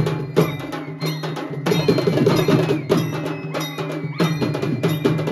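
Live Maharashtrian banjo-party band music played through loudspeakers: fast, steady percussion strikes, including a bright metallic clank, under a gliding melody line.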